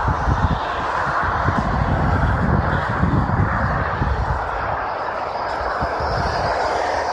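Steady roar of expressway traffic, tyre and engine noise from cars passing below, with uneven low rumbling underneath.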